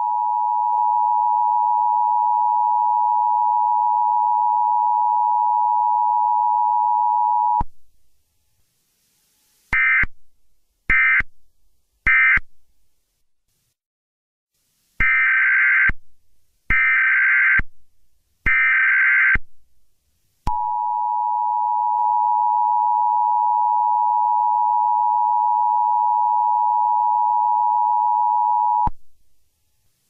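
Electronic telephone-like tones. A steady low two-note hum sounds for about eight seconds and stops. After a short silence come three short higher beeps about a second apart, then three longer higher beeps. The low steady tone returns for about eight seconds near the end.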